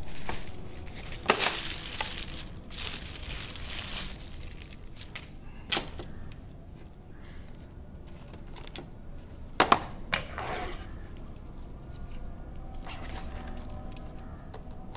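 Hands handling a small cardboard product box on a wooden tabletop: rustling and scraping with several sharp taps and knocks, the loudest a pair about ten seconds in. Near the end, scissors work at the top of the box to open it.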